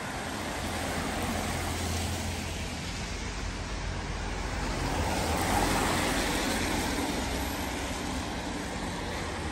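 Road traffic passing on a wet street: cars and vans going by with a low engine hum and tyres hissing on the wet tarmac, swelling a little past halfway as a vehicle passes close.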